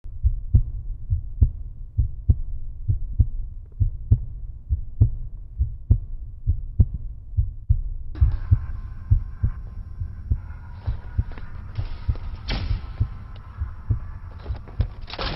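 Heartbeat sound effect: low, muffled thumps in lub-dub pairs, about one beat a second. About eight seconds in, a faint hissing background layer joins it.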